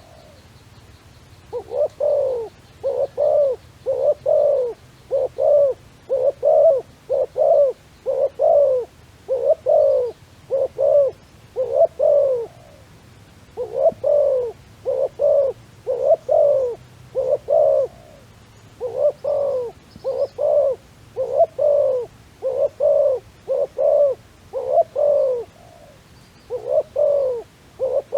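A dove cooing again and again, about one and a half coos a second, each coo bending up and then down in pitch, in long runs broken by a few short pauses.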